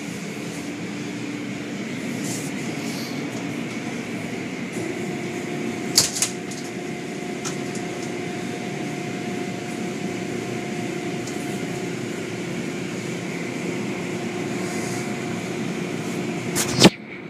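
Automatic tunnel car wash running: a steady hum of machinery under water spray and cloth curtains working over a car. A few sharp knocks come about six seconds in, and a loud thump comes near the end.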